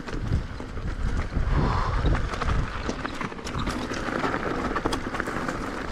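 Wind rushing over the camera microphone, with a low rumble and scattered clicks and rattles from an electric mountain bike riding over a stony track.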